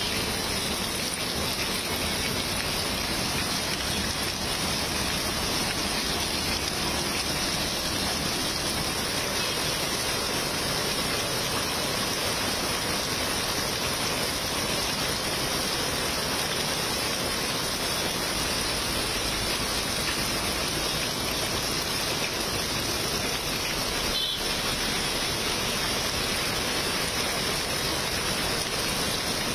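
Heavy monsoon rain pouring steadily onto paving and a waterlogged road, making a dense, even hiss.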